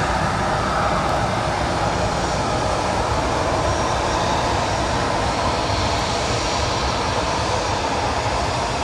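Jet airliner engines running, a steady even rush that fades slightly over several seconds.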